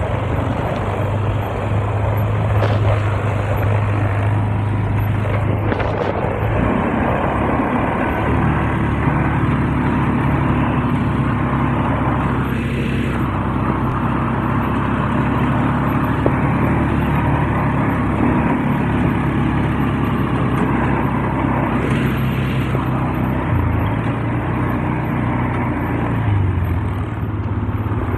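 ATV engine running under way at low speed, with a steady engine note that shifts as the throttle changes about six seconds in and again near the end.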